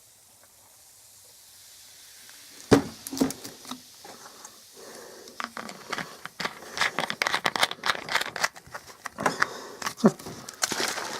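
A knock about three seconds in, then a dense run of crackling and clicking from a glass of ice cubes and fizzing ginger ale being mixed.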